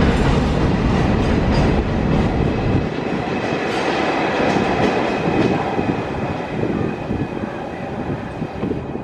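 Container freight train rolling past on the rails. Its heavy low rumble drops away about three seconds in, leaving wheel-on-rail noise with a faint steady whine.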